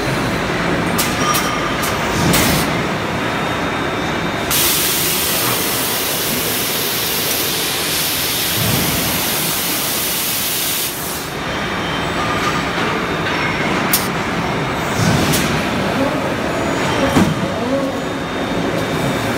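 Forging shop machinery running steadily, with a loud hiss lasting about six seconds in the middle and a scattering of sharp knocks.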